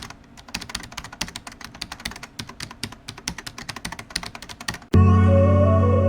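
Rapid clicking of keyboard typing, many keystrokes a second. About five seconds in it cuts off and music with sustained synthesizer chords starts abruptly.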